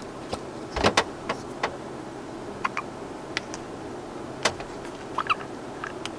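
Hiccups: a series of short, sudden hics at uneven intervals, loudest as a close pair about a second in, with a couple of brief squeaky ones near the end.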